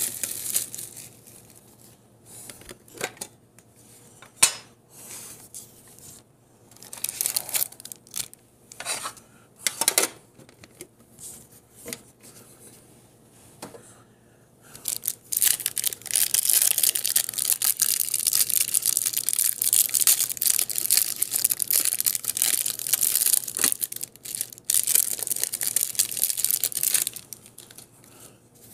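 Cellophane wrap crinkling and tearing as it is pulled off a stack of Topps baseball cards. Scattered rustles and taps for the first half, then about halfway through a long stretch of loud, continuous crinkling that stops shortly before the end.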